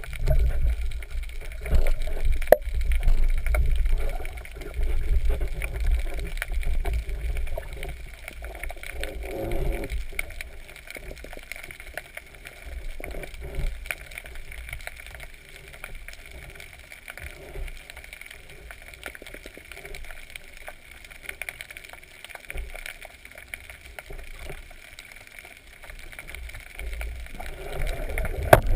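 Underwater water noise heard through a camera's waterproof housing: a low rumble of moving water, stronger in the first ten seconds or so, with scattered small clicks and one sharp click about two and a half seconds in.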